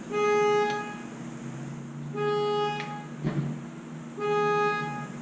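A single steady beep with a rich, reedy tone, repeated every two seconds, three times, each lasting just over half a second. A soft knock falls between the second and third beeps.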